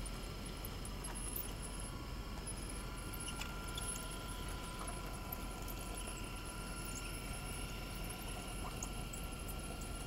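Drive motors and gearboxes of a 1/12-scale radio-controlled Caterpillar 973B track loader model whining steadily as it crawls over loose dirt, with scattered small high squeaks and ticks from the running gear.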